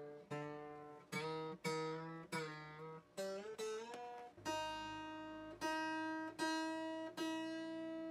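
Acoustic guitar being tuned: single strings plucked over and over, with the pitch sliding as a tuning key is turned. About halfway through, one higher string is plucked every second or so on a steady pitch.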